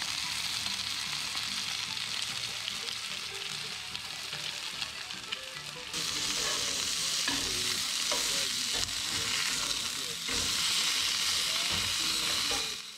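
Chicken thighs frying in olive oil, a steady sizzle that gets louder about six seconds in.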